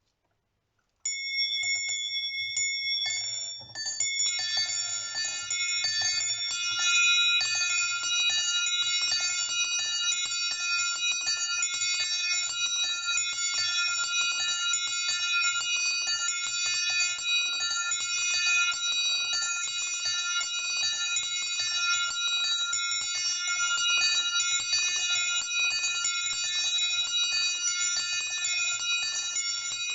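Small bells of a personal bell tower pealing together in a continuous, overlapping ringing. A few bells start about a second in, and more join a couple of seconds later for a dense, steady peal.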